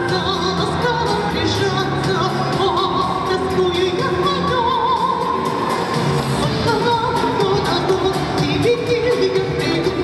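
A singer singing with musical accompaniment, amplified over a stage PA; the voice wavers with vibrato on the held notes.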